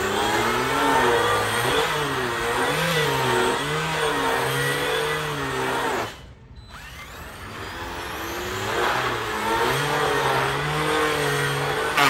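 Replica RC Formula One car's onboard engine-sound system playing a racing-engine note that revs up and down over and over as the car spins. The sound cuts out about halfway through, then builds back up and keeps revving.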